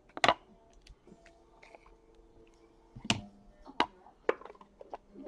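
A few sharp, short clicks and taps from trading-card packaging and cards being handled on a table while a box is opened: one just after the start and three more over the second half.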